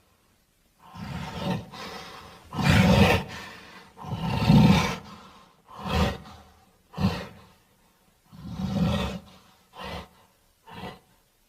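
A string of about eight short monster growls and roars, each a separate rasping snarl with a pause between, the later ones shorter and quieter.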